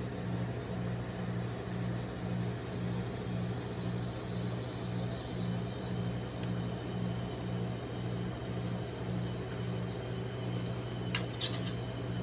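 Steady low hum of the rolled ice cream machine's refrigerated cold plate. About a second before the end, a few sharp clicks as metal spatulas start striking the steel plate.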